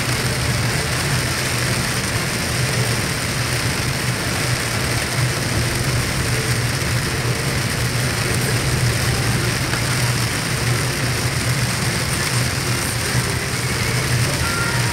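Heavy rain beating on a car and wet road noise, heard from inside the moving car's cabin, over a steady low engine hum.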